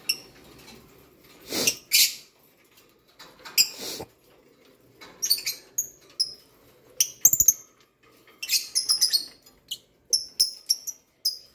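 Lovebirds chirping: many short, high, sharp calls in scattered bursts, with a few louder harsh calls about two and four seconds in.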